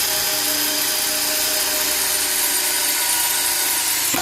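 Power drill running steadily at full speed, driving a hole saw pressed hard against sheet metal, with a washer on the hole saw spinning against the metal surface. It gives a steady whine over a dense hiss.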